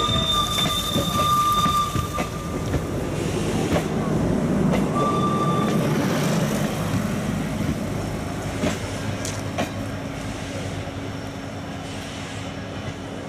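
A train running past with the rumble and noise of its wheels on the rails. A high steady tone sounds over it for the first two seconds or so and again briefly about five seconds in. The sound then fades away steadily as the train recedes.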